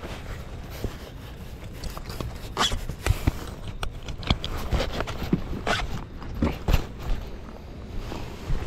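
A life jacket being taken out and put on: rustling, scattered knocks and scrapes, and a zip.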